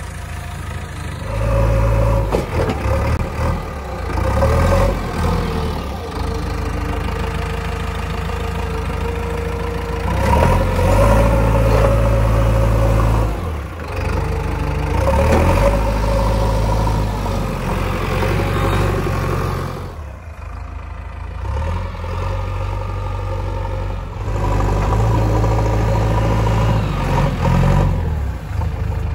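Diesel engine of a JCB 3DX backhoe loader running under load as its front loader bucket lifts and pushes soil, the engine revving up and easing back several times as the bucket works.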